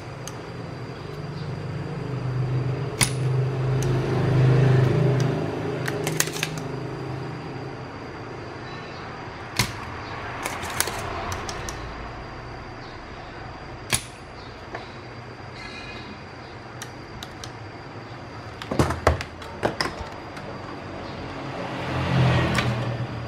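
Small tools working on a fan's Hall sensor and housing: scattered sharp clicks and taps, over a low hum that swells a few seconds in and again near the end.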